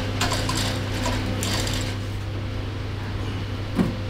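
Metal clinking and rattling of steel parts and tools while an engine is worked onto its mounts, thick in the first two seconds and then sparse, over a steady low hum. A single knock near the end.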